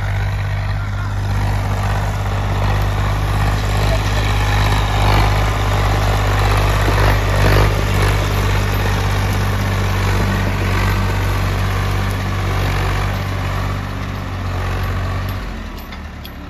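Swaraj 855 tractor's diesel engine running at steady revs. About a second before the end its note drops lower and quieter as it is throttled back.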